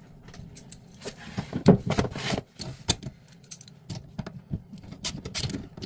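Metal hand tools clinking and clicking: pliers being set on the chrome angle stop valve under a toilet, a scatter of short, sharp metallic clicks with a louder knock about a second and a half in.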